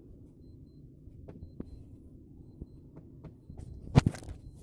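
Low steady rumble of a small wooden outrigger canoe riding on the sea, with a few faint light clicks and one sharp knock against the wooden hull about four seconds in, followed by a few lighter knocks.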